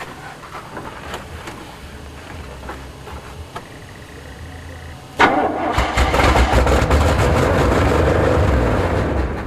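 1977 GMC truck's engine catching suddenly about five seconds in and running loudly on gas squirted into the carburetor, then dying down near the end as the priming fuel runs out, its own fuel system not working.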